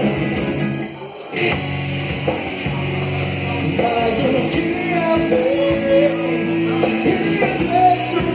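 Live band music: an instrumental passage between sung lines, with a short break about a second in, then a melody line over steady sustained accompaniment.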